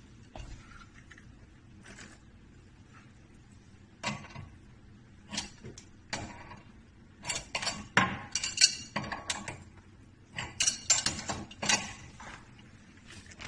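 A wrench clicking and clinking against metal pipe fittings as a braided water-hose nut is tightened onto an angle valve under a sink. The taps come in irregular clusters, busiest in the second half.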